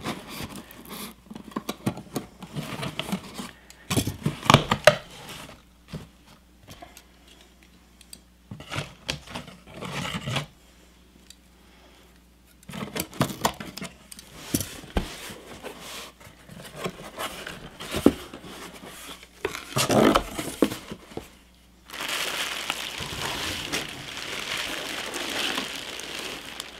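Hands opening a taped cardboard shipping box: scraping and tearing of packing tape and cardboard flaps, in irregular bursts with short pauses. From about 22 seconds in, the plastic bag wrapping the purse crinkles steadily as it is handled.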